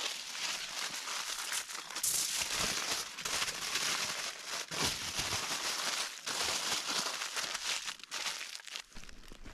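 Continuous crinkling, crackling rustle, thick with small clicks, easing off near the end.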